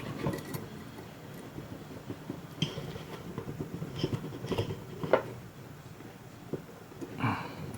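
Small metal parts of a helping-hand soldering stand being handled and fitted together: irregular light clicks, taps and a few ringing ticks, with one louder knock about five seconds in.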